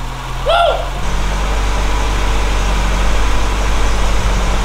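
VW Golf 2's four-cylinder petrol engine, freshly started on a new Weber 32/34 carburettor, running at a steady fast idle on the choke as a cold start. About a second in the engine note shifts and grows a little louder. A brief voice sound comes just before it.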